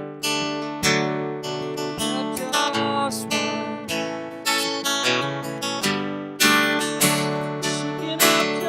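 Acoustic guitar being strummed in an instrumental passage, with sharp chord strums roughly once a second that ring out between strokes.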